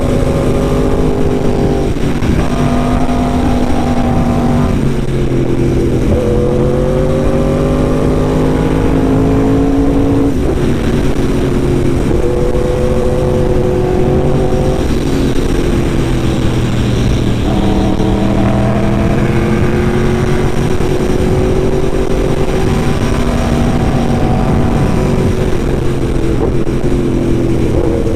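Yamaha R1M sportbike's crossplane inline-four engine running under way, its note holding and then shifting to a new pitch every few seconds with throttle and gear changes.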